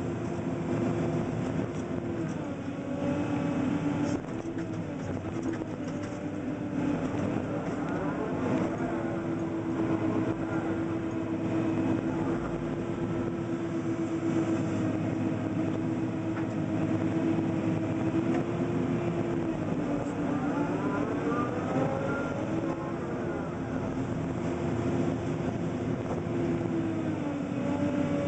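Komatsu PC300 excavator's diesel engine and hydraulics running, heard from inside the cab while digging and loading. The steady engine note dips in pitch a few times and recovers, and a whine slides up and down about two thirds of the way through.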